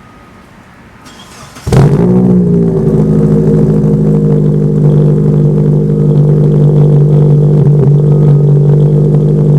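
Third-generation Mitsubishi Eclipse's engine starting about two seconds in. The revs flare briefly, then settle into a steady, loud idle.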